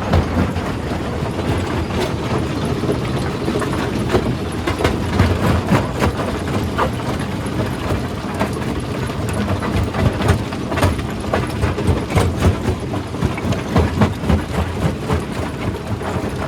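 Stone crusher running under load: a steady low rumble with frequent irregular knocks and cracks as rocks are broken up.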